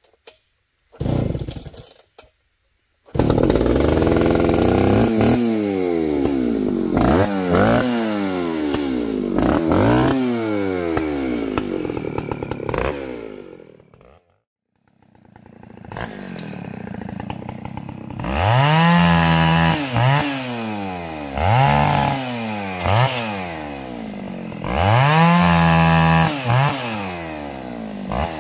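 Two-stroke chainsaw started after a couple of short pulls, then run hard with its pitch repeatedly dropping and climbing. It dies out about halfway, is restarted, and is revved up and down in short bursts about every second and a half.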